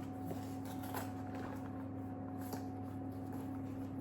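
A steady low electrical hum under quiet room tone, with a couple of very faint small clicks.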